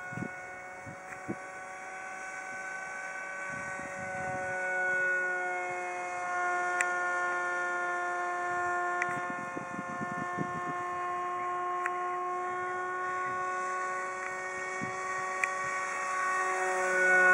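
A Depron RC F-22 Raptor model's small electric motor whines steadily in flight, its pitch drifting a little up and down. It grows louder near the end as the plane comes close. The motor is working hard, with barely enough thrust for the model.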